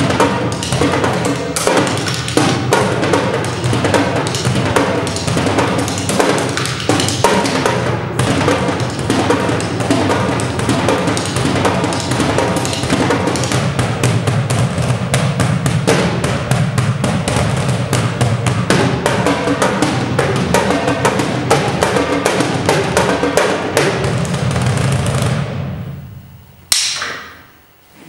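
Two percussionists playing a fast, dense passage of drum strokes on a shared drum kit, the piece's final bars. Near the end the playing drops away and closes on a single accented stroke that rings and dies out.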